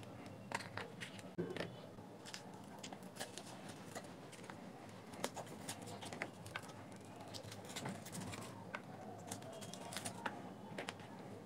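Faint, scattered clicks and scrapes of a thin metal pry tool and fingers working LED light strips loose from a small Bluetooth speaker's plastic frame, with a few sharper clicks as strips snap free.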